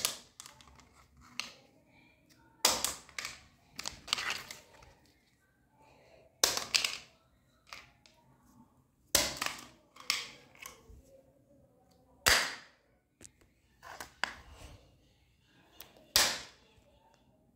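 A hard plastic disc spun like a top on a wooden floor, clattering down and knocking into plastic clothespins: a series of sharp clacks every second or two, some coming in quick clusters.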